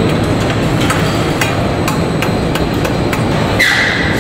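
Truck assembly-line noise: a steady din with irregular sharp metallic knocks and clicks of tools working on a chassis, and a brief high whine about three and a half seconds in.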